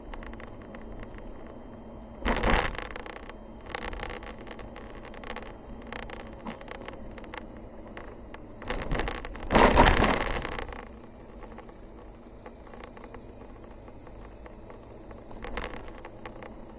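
A vehicle driving on a forest road, heard from on board: a steady low running noise with scattered light ticks and crackles. Two louder rough rushes of noise stand out, a short one about two seconds in and a longer, louder one around ten seconds in, with a smaller one near the end.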